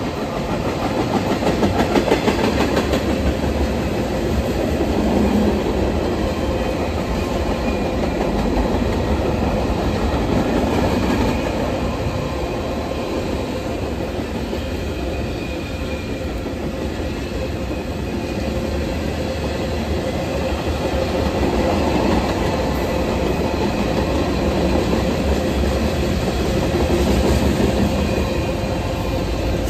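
Freight cars of a passing mixed freight train rolling by on the rails: a steady rumble and clatter of steel wheels on track.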